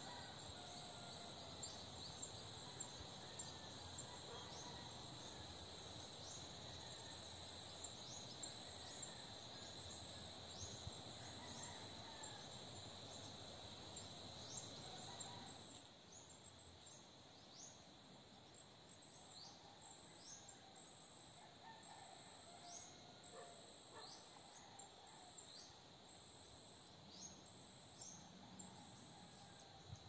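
Faint forest ambience of insects and birds: a steady high insect buzz and a pulsing very high trill, with many short, high, falling chirps and scattered faint bird calls lower down. About halfway through, the steady buzz and the background hiss drop away, leaving the chirps and the trill.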